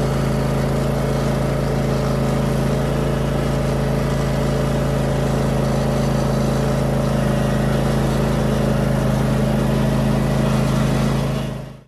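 Riding lawn mower engine running at a steady speed while the mower is driven along a road, a constant hum with no change in pitch. It fades out near the end.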